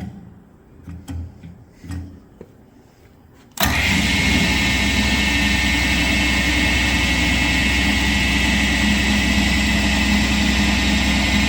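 Hardinge HSL-59 speed lathe's spindle motor switching on suddenly about three and a half seconds in, then running steadily with a high whine through its step-pulley drive.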